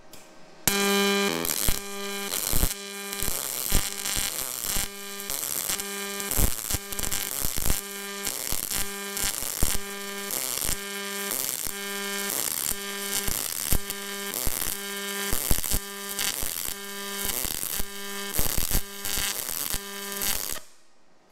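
Aluminum MIG weld run with a Yeswelder Firstess DP200 on dual pulse: a buzzing arc whose pitched pulse tone swells and eases about once a second as the machine cycles between high and low current at 1 Hz. The arc strikes about half a second in and stops just before the end.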